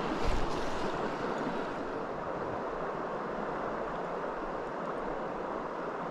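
Steady rush of flowing river water, with a gust of wind buffeting the microphone near the start.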